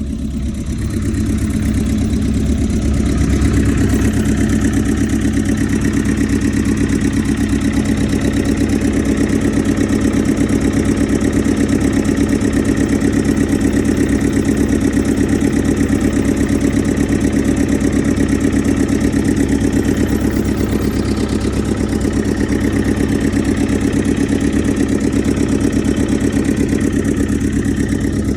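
JCB JS220 excavator's four-cylinder Dieselmax diesel engine running steadily. It gets louder over the first few seconds, then holds an even note. The engine is running again after a failed injector was replaced.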